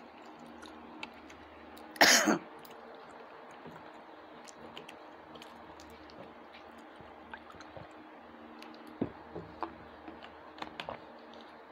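A person clears the throat with one short, loud cough about two seconds in. The rest is faint small clicks and mouth sounds of people eating rice with their fingers.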